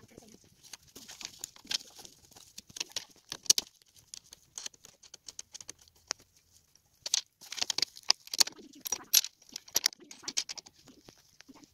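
Small metal hardware clicking, rattling and scraping by hand: connector brackets and wing nuts being fitted to the metal frames of solar panels. Irregular clicks with short pauses, busiest in the second half, with one sharp click a few seconds in.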